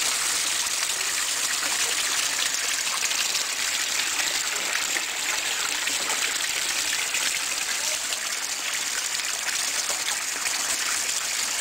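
Water gushing steadily from a PVC pipe and from the cracked base of a barrel and splashing into a fish pool. This is a pump-fed improvised cascade that aerates the water.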